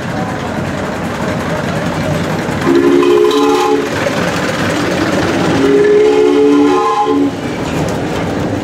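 Two long blasts of a multi-note whistle, each a steady chord of several notes held for more than a second, the first about three seconds in and the second about six seconds in, over a steady rumble.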